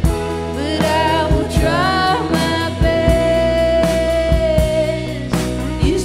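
Background music: a cover song with a voice singing over guitar and drums, holding one long note in the middle.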